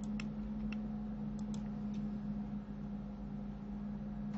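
A few faint computer keyboard and mouse clicks, about six in the first two seconds, over a steady low hum.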